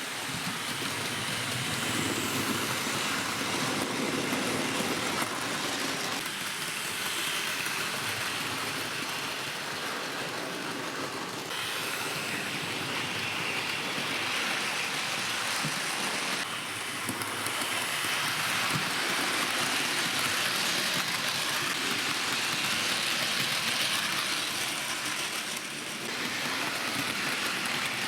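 Hornby model train locomotive running along the track in reverse, a steady whirring rattle from its motor and wheels on the rails, with small rises and falls in level every few seconds.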